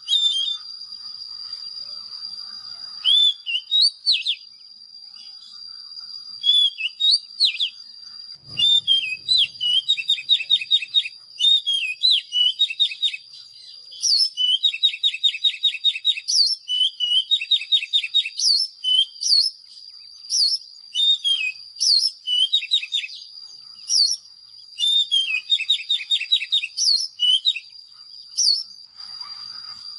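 Oriental magpie-robin singing: varied whistled phrases broken by rapid trills, repeated in bursts over a steady high-pitched whine.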